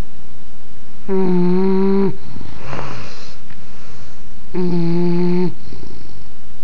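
English bulldog snoring: two long wheezy snores, each a steady pitched tone about a second long that drops in pitch as it ends, with a rough, noisy breath between them.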